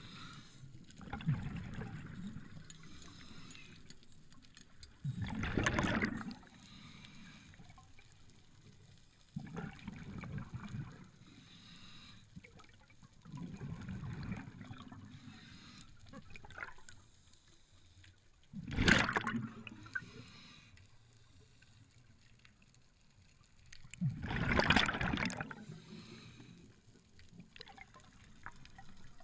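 Underwater sound as picked up by a camera in its housing: a low muffled background broken every few seconds by rushing, bubbling bursts of water noise, the loudest and sharpest about two-thirds of the way in.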